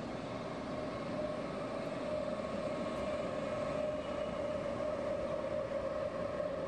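A yellow-and-blue NS passenger train moving past close by: a steady rush of running noise with a constant tone through it, growing a little louder about two seconds in.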